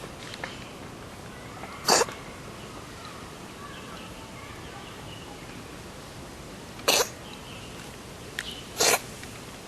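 A cat sneezing three times: short, sharp bursts about two seconds in, about seven seconds in, and again near the end.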